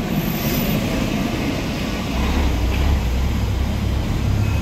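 Busy street traffic, with a deep engine rumble from a passing vehicle that grows louder about two seconds in.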